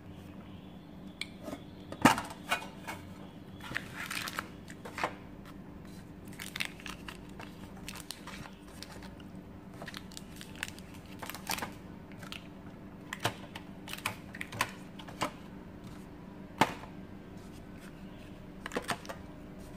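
Plastic snack-bar wrappers crinkling and rustling as the wrapped mini wafer bars are handled and laid one by one into a metal tin pencil case, with irregular sharp clicks and knocks, the loudest about two seconds in and again near the end.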